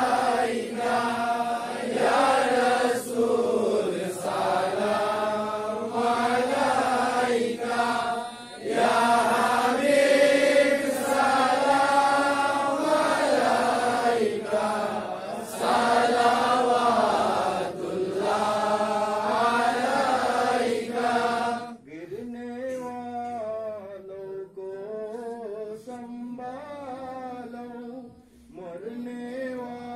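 Voices chanting devotional verses in a sung, melodic line, dropping to noticeably quieter singing about two-thirds of the way through.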